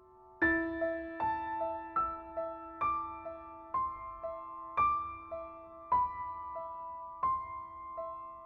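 Background music: a gentle piano melody of single struck notes over a held low note, coming in about half a second in.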